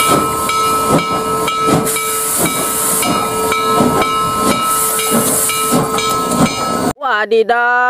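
Western Maryland 734 steam locomotive blowing one long, steady whistle over the hiss of steam, with its exhaust chuffing about twice a second. Everything cuts off suddenly near the end.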